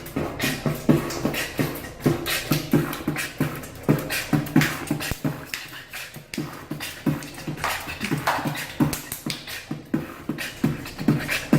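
Beatboxing: one person's mouth-made drum beat, a quick steady rhythm of sharp snare and click sounds with short pitched bass notes woven between them.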